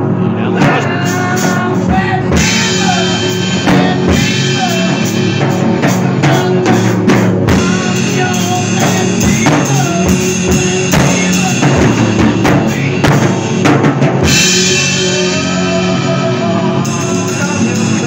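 Rock music with a drum kit, drum hits landing throughout over a dense band.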